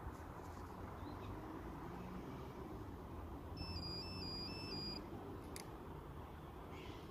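Steady low rumble of wind on the microphone, with a faint run of short high notes alternating between two pitches for about a second and a half near the middle, and a single sharp click shortly after.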